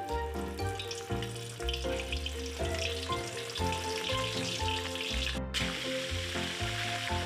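Tapioca-coated mantis shrimp deep-frying in hot oil in a wok: a steady sizzle and crackle that grows louder and denser after a brief break about five and a half seconds in. Background music with a bass line plays throughout.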